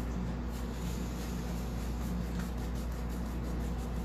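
A cloth rag scrubbing back and forth over a wooden tabletop, rubbing black chalk paint into the grain as a stain, over a steady low hum.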